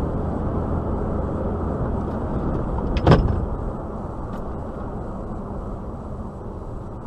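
Steady road and engine noise of a car driving on a highway, heard through a dash cam inside the car. About three seconds in there is a single short, loud thump.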